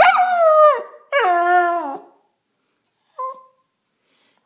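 A small black-and-tan dog howling along to singing: two falling howls about a second each, the first over the tail of a woman's sung note, then a brief whimper about three seconds in.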